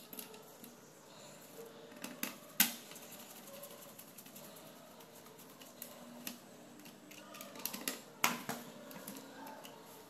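Small clicks and taps of a screwdriver and parts being handled on an opened ThinkPad R61i laptop's plastic chassis around the CPU heatsink. Two sharper knocks, about two and a half seconds in and again about eight seconds in, stand out.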